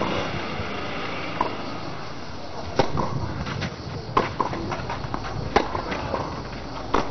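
Tennis rally on a clay court: sharp racket strikes on the ball, four of them about a second and a half apart, over a steady outdoor hiss.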